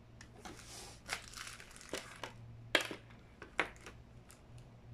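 Clear plastic packaging bag crinkling as it is handled, with several sharp clicks and knocks of small hard plastic parts against the table. The loudest knock comes near the three-second mark. A faint steady electrical hum sits underneath.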